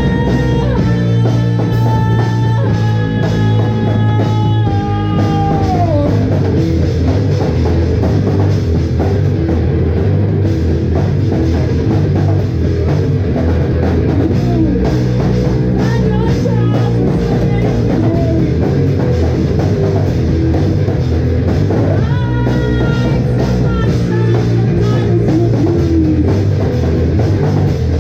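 Rock band playing live at full volume: a drum kit and guitar. Held guitar notes slide down in pitch about five seconds in, and similar held notes come back near the end.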